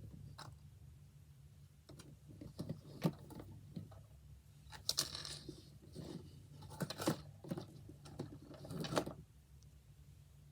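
Small plastic fidget toys being handled and sorted through: scattered clicks, clacks and short rattles, several in a cluster about every two seconds.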